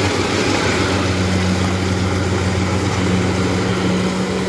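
Kubota DC-70 Plus rice combine harvester running at working speed while cutting and threshing rice: its diesel engine gives a steady drone with a constant low hum under a wash of mechanical noise.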